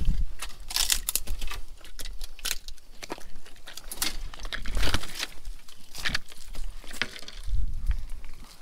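Dry twigs and dead branches crackling and snapping in irregular clicks as someone steps and pushes through brush, with low thumps of footsteps.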